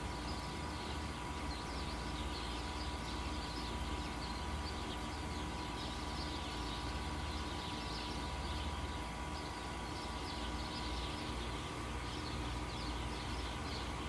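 Many small birds chirping continuously in quick high notes over a steady low mechanical hum.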